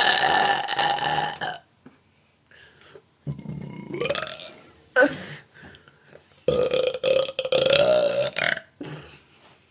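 A woman belching loudly several times. Two long belches of about two seconds each, one at the start and one about six and a half seconds in, are the loudest, with shorter ones between them.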